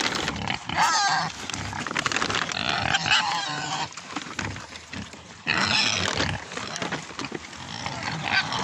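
Young wild boars squealing and grunting as they jostle over food, in three bouts of high, wavering squeals about a second in, around three seconds and around six seconds, over steady crunching and snuffling as they eat dry cat food off the ground.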